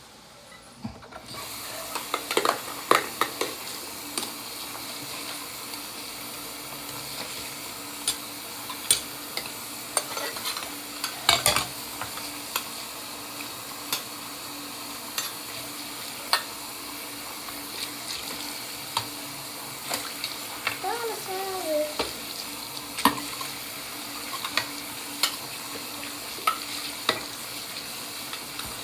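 Tap water running steadily into a sink while a bowl is washed out, with scattered clicks and knocks of the bowl and utensils against the sink. The water comes on about a second in, and there is a brief wavering squeak a little after twenty seconds.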